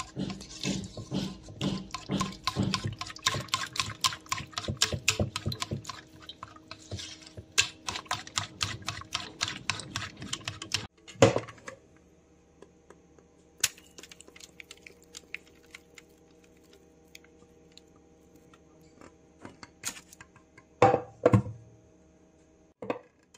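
Balloon whisk beating a thick, creamy kulfa mixture in a bowl: a fast, continuous run of wet slaps and clicks for about eleven seconds. A single loud knock follows, then a much quieter stretch with scattered light clicks and a couple of knocks near the end.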